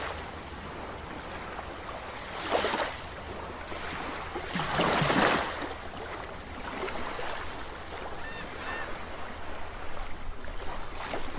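Underwater sound-effect ambience: a steady watery rush with two swelling whooshes, the louder one about five seconds in, and a few faint high blips like bubbles near the end.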